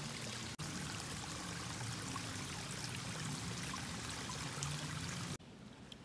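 Small creek running, a steady rush of water that cuts off abruptly near the end.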